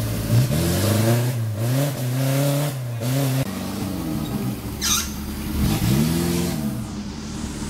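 Suzuki Jimny's four-cylinder petrol engine revved again and again under load as the 4x4 crawls up a steep, muddy, rocky track, its pitch climbing and falling with each burst of throttle. A brief high-pitched squeak sounds about five seconds in.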